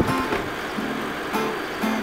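Acoustic guitar being played: held notes ringing, with a couple of strummed chords in the second half.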